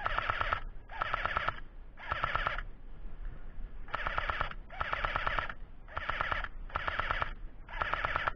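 Battery-powered airsoft rifle firing about eight short full-auto bursts. Each burst is roughly half a second of rapid clicking shots, and they come about once a second, with a longer pause about two and a half seconds in.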